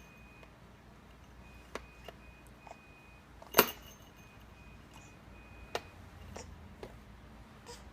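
Scattered clicks and knocks, with one much louder knock about three and a half seconds in, over a faint high tone that switches on and off.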